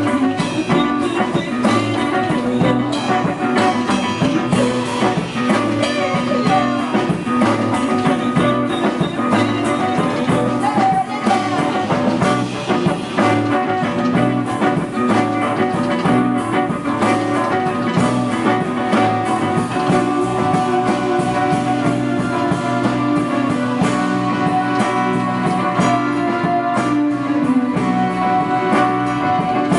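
A rock band playing an instrumental passage, with guitar over bass, keyboard and a drum kit.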